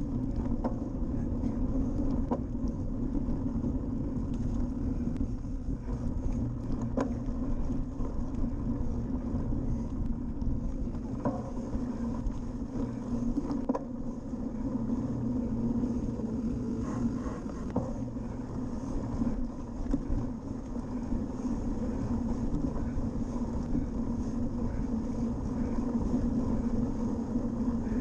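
Cyclocross bike ridden over dirt and sand: a steady rumble of tyres and wind with occasional rattling knocks from bumps.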